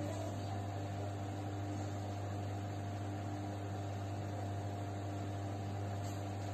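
Steady low electrical hum with a faint even hiss underneath, unchanging throughout.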